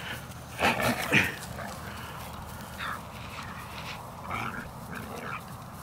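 Mixed-breed dog making excited vocal sounds in rough play, loudest in a burst about a second in, then a few fainter ones.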